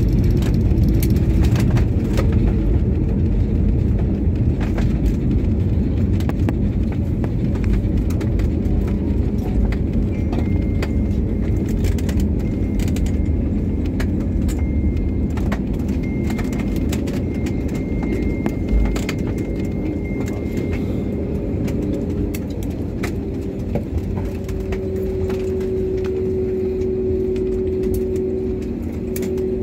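Jet airliner cabin noise during the landing rollout: a steady rumble from the engines and the wheels on the runway that slowly eases as the plane slows. There are small rattles throughout, a faint high whine partway through, and a couple of steady engine tones coming up near the end as it turns off toward the taxiway.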